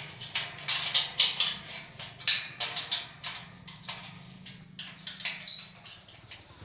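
Irregular metallic clicks and taps, several a second, from hand tools working the bolted joints of aluminium lattice truss sections, over a faint low steady hum.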